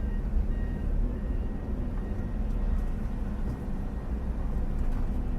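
Vehicle moving, a steady low rumble of engine and road noise.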